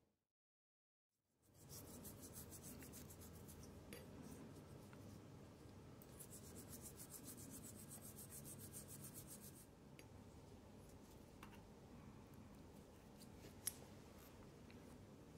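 Faint scrubbing of a soft toothbrush on a watch movement plate in isopropyl alcohol, rapid short strokes from about a second and a half in until near ten seconds. Then lighter scratching of a wooden stick on a small metal watch part, with a few small clicks and one sharp click near the end.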